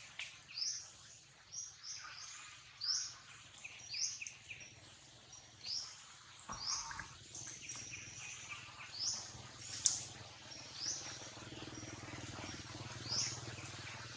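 A bird chirping over and over, short high rising notes about once or twice a second, above a steady low hum. A single knock comes about halfway through, and a sharp click a few seconds later is the loudest moment.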